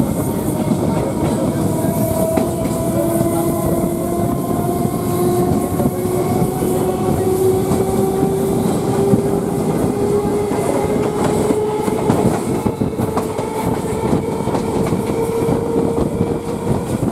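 Electric local train running along the track, heard from an open door: steady wheel-on-rail rattle with clicks and knocks. A whine from the electric traction motors rises slowly in pitch throughout as the train gathers speed.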